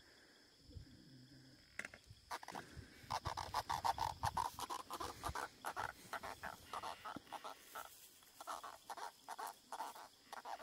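Small moncholo catfish croaking out of the water while held in the hand: a run of rapid, irregular croaks starting about two seconds in.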